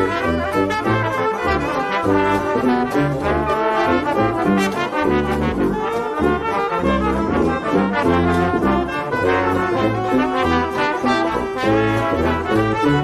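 Background music led by brass instruments over a low bass line that steps from note to note in a steady rhythm.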